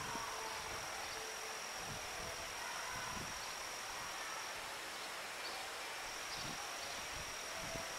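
Insects trilling steadily on one high pitch over a steady outdoor background hiss; the trill pauses for a second or two just past the middle.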